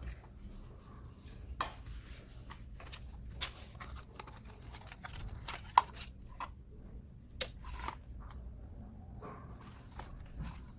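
Scattered clicks, taps and rustles of hands handling a smartwatch and its packaging, with one sharp click about six seconds in.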